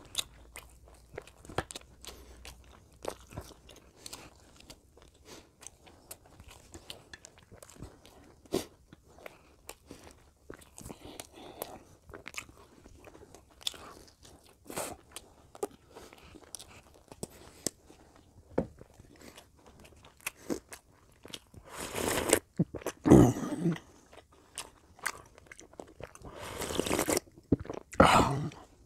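Close-miked eating of lamb curry and rice by hand: steady chewing with many small wet mouth clicks and smacks. Two louder, longer stretches of noise come near the end.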